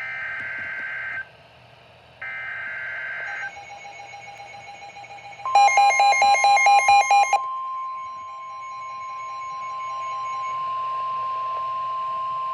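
Emergency Alert System / NOAA Weather Radio warning tones for a tornado warning. Two one-second bursts of the SAME digital header data tones come first. About five seconds in, a loud, rapid string of beeps lasts about two seconds, and with it the steady single-pitch warning alarm tone begins and holds.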